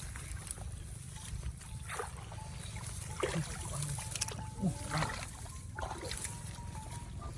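Shallow water splashing and trickling in short irregular strokes over a steady low rumble.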